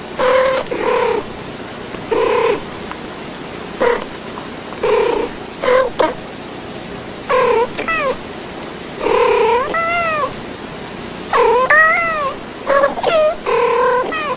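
Two domestic cats trading short meows and chirping calls back and forth, about a dozen in all. Several calls in the second half bend up and then down in pitch.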